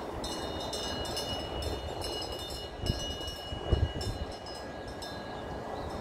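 Metal wind chime ringing in several high, lingering tones over a steady rushing outdoor background, with two low thumps about three seconds in.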